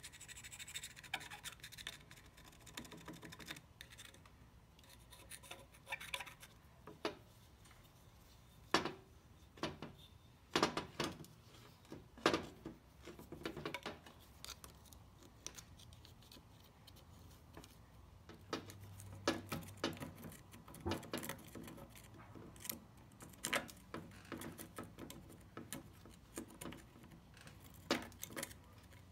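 Pick scraping caked crud off the metal body of a Norton Commando's horn: irregular scratches and short sharp scrapes, some louder than others.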